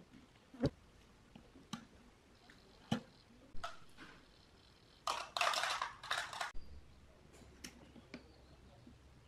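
Small sharp clicks and taps of handling on the bench: metal multimeter probe tips and small parts touching a circuit board, with a short scraping rustle about five seconds in lasting about a second and a half.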